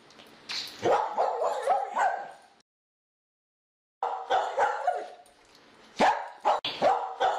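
A dog barking and yipping in quick runs of short calls, with the sound cutting out completely for about a second and a half near the middle.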